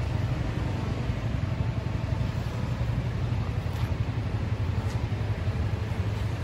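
Honda CB1100RS's air-cooled inline-four engine idling steadily, a low even exhaust note with no revving.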